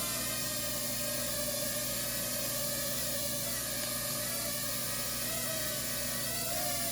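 Small phone-controlled drone flying, its propellers giving a steady whirring hiss with a motor whine that wavers slightly in pitch near the end.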